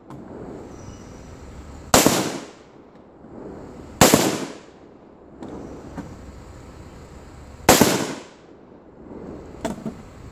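AR-15 patrol rifle shots: three single shots, the first about two seconds in, the second two seconds later, the third nearly four seconds after that, each a sharp crack with a short echo.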